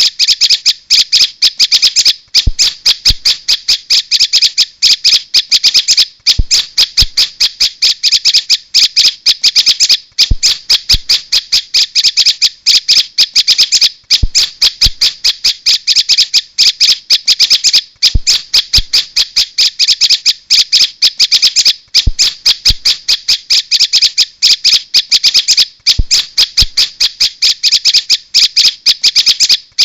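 Prenjak (prinia) lure call: a rapid, chattering run of short, sharp calls repeated several times a second, with a brief break about every four seconds, as in a looped recording played to draw prenjak in.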